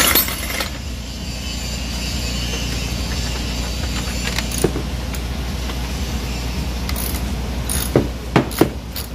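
Metal hand tools clinking together, then sharp metallic ticks from a wrench working a bolt on an ATV's plastic footrest; the ticks come faster, about three a second, near the end. A steady low rumble underlies it all.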